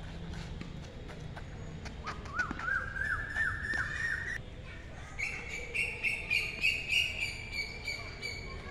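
A bird calling: a run of short repeated notes that climb step by step in pitch, then a faster run of higher, evenly repeated notes. A few sharp knocks come before the calls.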